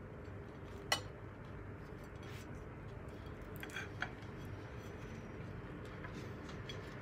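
Metal spoon clinking against a ceramic bowl while filling is scooped out: one sharp clink about a second in, then a few lighter clicks around four seconds, over a steady low hum.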